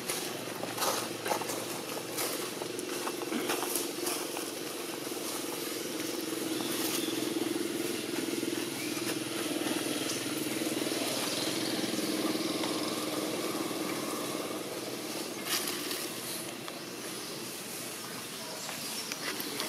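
A steady engine hum that grows louder through the middle and fades again, with scattered light clicks and rustles.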